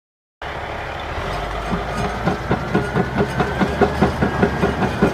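Crawler sideboom pipelayer's diesel engine running as it drives on its steel tracks, the track links clanking at about four a second, with a thin whine above.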